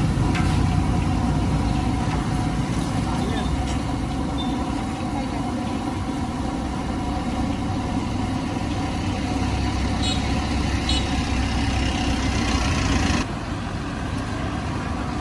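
Street-side background noise: a steady low rumble with voices in the background. The level drops suddenly about two seconds before the end.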